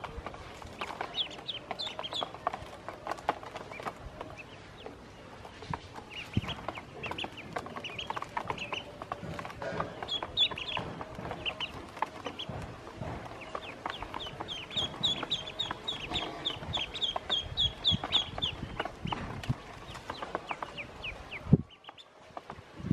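Yellow ducklings peeping in short high chirps, with a fast run of peeps, about four to five a second, in the later part, over many small clicks of bills pecking feed from a plastic basin. A sharp knock comes near the end.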